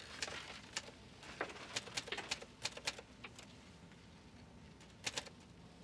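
Faint scattered clicks and taps, about a dozen in the first three seconds and two more near the end, over low room noise.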